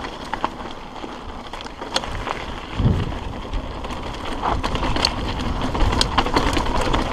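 Hardtail mountain bike riding fast over a rocky trail: a steady rumble of tyres on stone with frequent sharp rattles and knocks from the bike, and wind on the microphone growing louder as it picks up speed in the second half.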